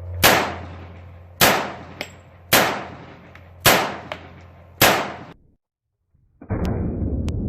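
Five sharp bangs about a second apart, each ringing away before the next, over a low steady hum. After a short silence a different steady noisy sound starts near the end.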